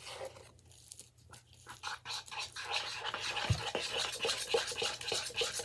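Homemade slime being stretched and squished by hand, giving fast wet crackling and clicking. It is faint at first and becomes a dense crackle about two seconds in.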